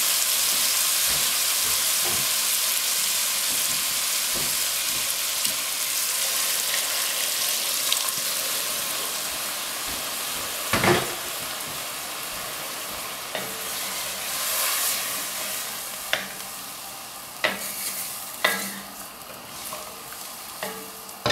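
Onion and tomato masala sizzling in an enamelled cast-iron pot while it is stirred with a wooden spoon, the sizzle slowly fading once hot water has been added to the pan. The spoon knocks against the pot now and then, loudest about halfway through.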